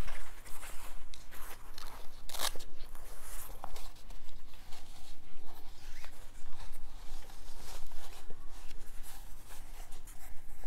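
Rustling and scuffing of a neoprene dog knee brace and its straps as it is worked up a dog's hind leg. The noises come in irregular short bursts, with a louder one about two seconds in.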